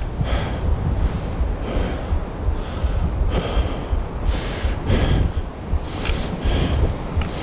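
A hiker breathing hard on a steep uphill climb, with repeated loud breaths, over low wind rumble on the microphone.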